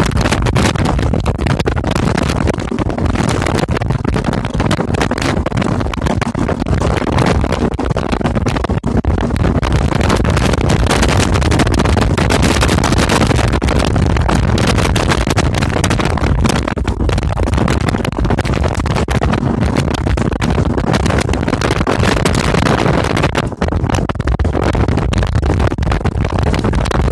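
A 1989 Yamaha 40 hp outboard running with the boat underway, largely buried under loud, gusting wind buffeting on the phone's microphone.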